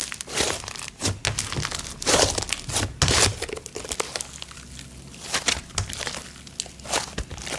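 Thick snow butter slime being squished and pressed by hand, giving off sizzly crackles in irregular bursts, loudest around two and three seconds in.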